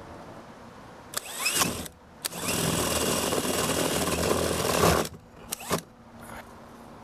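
Cordless drill driving a screw into a camera mounting block on siding. There is a short burst with the motor winding up in pitch about a second in, then a longer run of about three seconds, then two brief blips of the trigger.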